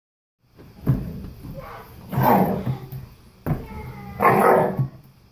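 A German Shepherd puppy and a golden retriever play-fighting, trading barks and growls. There are four loud bursts, in two pairs: a sharp one about a second in, a longer, louder one about two seconds in, then the pattern again about three and a half and four and a half seconds in.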